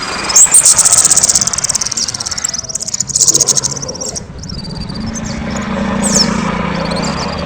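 Kemade songbird singing loudly: a fast, rattling high trill for about two seconds, a shorter burst of it after that, then brief high whistled glides. A low steady hum runs underneath in the second half.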